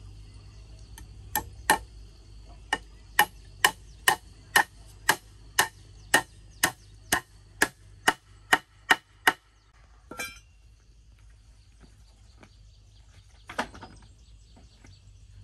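A hammer driving a nail into a wooden pole: about seventeen sharp strikes, roughly two a second, stopping after about nine seconds. A short clatter follows, then one knock near the end.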